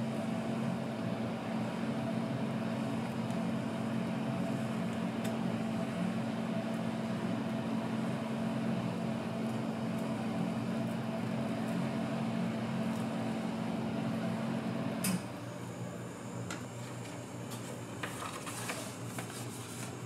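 Steady low machine hum, like a fan or refrigeration unit, that cuts off abruptly with a click about three-quarters of the way through. Quieter room tone follows, with a few light taps and clicks.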